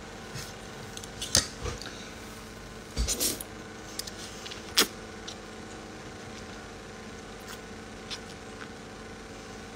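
A few sharp clicks and knocks over a steady background hum: one about a second and a half in, a short cluster around three seconds, and a sharp one near five seconds.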